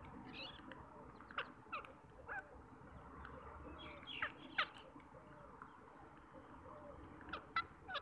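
Rose-ringed parakeets giving short, sharp squawks that sweep downward in pitch, coming in twos and threes spaced a few seconds apart.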